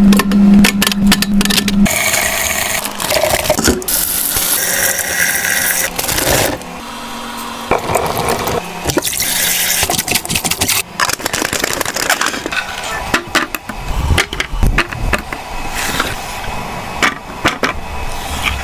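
Restocking handling sounds: packaging and plastic containers clicking, tapping and rustling as items are unpacked and put away, with stretches of hissing noise between the taps.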